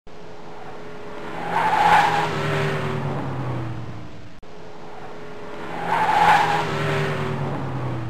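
A car driving past: the sound swells to a peak about two seconds in, then the engine note falls in pitch as the car moves away. The same clip of a few seconds plays again about four and a half seconds in.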